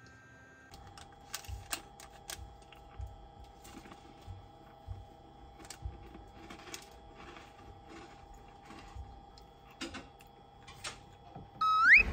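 Scattered light clicks and taps at uneven spacing over a faint steady hum, then a short rising whistle-like tone near the end.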